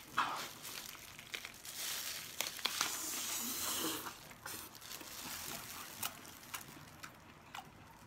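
Clear disposable plastic gloves crinkling while a large chunk of braised beef is gripped and torn apart by hand, with scattered sharp clicks and a hissy tearing patch a couple of seconds in.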